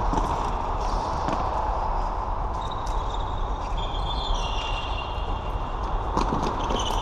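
Floorball being played indoors: sticks and the plastic ball clicking and knocking again and again over the steady, echoing noise of the sports hall, with a few high squeaks in the middle.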